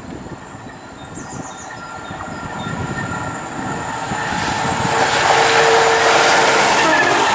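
Colas Rail Class 70 diesel locomotive approaching, its engine and wheel noise growing steadily louder and levelling off about five seconds in, with a steady whine of several tones on top. Faint bird chirps in the first few seconds.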